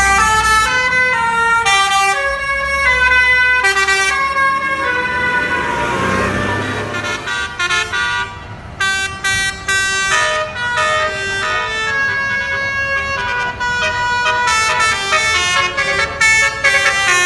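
Basuri telolet multi-tone bus horn playing melodies as a string of stepped, held notes. A rushing noise partly covers it a few seconds in, then the horn plays quicker runs of short notes.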